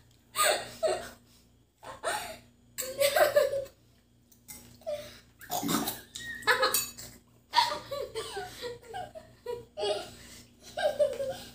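A young girl laughing in repeated bursts, with short gaps between them.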